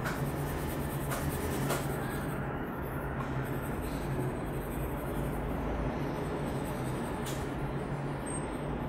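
Master Art coloured pencil scratching on drawing paper in steady back-and-forth shading strokes as an area is filled in with colour, over a steady low hum, with a few faint clicks.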